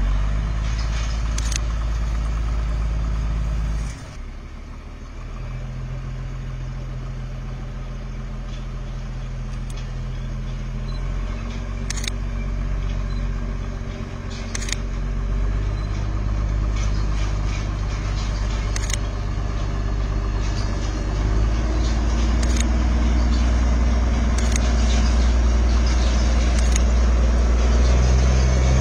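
Locomotive engine of a small mountain train running as it climbs, its pitch shifting in steps and growing louder as it comes close, with a few sharp clicks.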